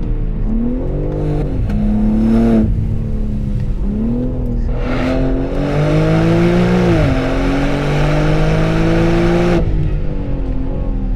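BMW M3 Touring (G81) twin-turbo straight-six on its stock exhaust, pulling through the revs. A short rise falls away about two seconds in. From about five seconds it climbs again, dips briefly near seven seconds as it shifts up, and drops off sharply near the end as the throttle closes.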